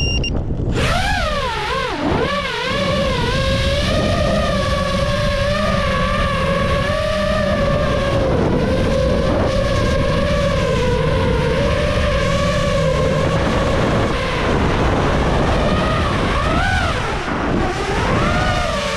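FPV quadcopter's brushless motors (iFlight Nazgul5) spinning up about a second in after a few short beeps, then whining with the pitch rising and falling as the throttle changes, with sharp dips about two seconds in and near the end. Low wind rumble on the microphone underneath.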